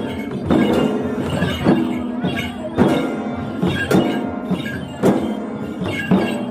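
Several chyabrung, the Limbu barrel drums, beaten by hand together in a steady rhythm, with a strong accented stroke about once a second and lighter strokes between.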